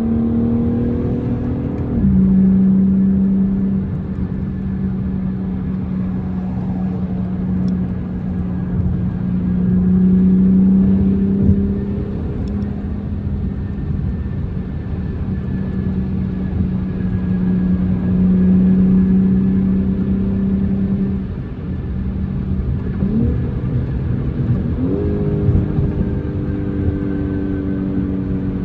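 2024 BMW M4 Competition's twin-turbo inline-six engine running steadily under way, a constant drone. Its note rises near the end as the car accelerates.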